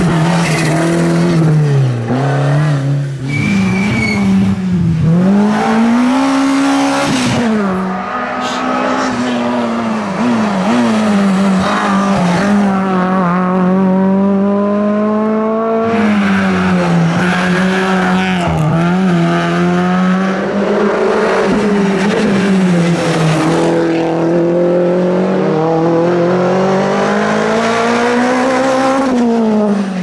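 Rally cars driven hard one after another, a Ford Sierra and then a Fiat Punto. Their engines rev high, the pitch climbing and dropping over and over through gear changes and lifts for the corners.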